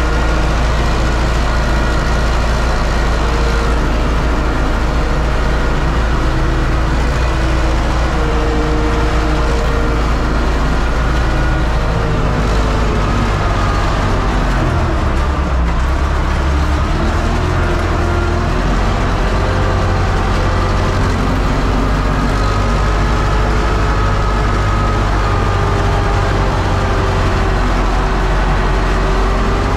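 A U650 tractor's four-cylinder diesel engine running steadily under load while pulling a disc harrow, heard from inside the cab as a continuous loud drone. Its tone shifts a little about halfway through.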